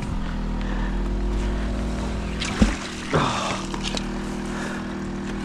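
An engine runs steadily throughout with a low, even hum. About two and a half seconds in, there is a sharp knock followed by a short splash as the fishing magnet hits the water.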